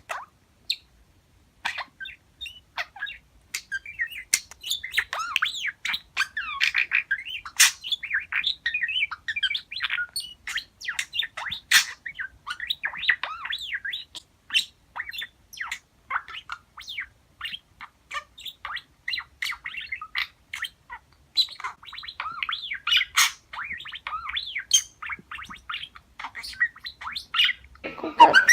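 Cockatiel chattering and warbling: a few scattered chirps at first, then a busy run of short chirps, squawks and whistles that slide up and down in pitch.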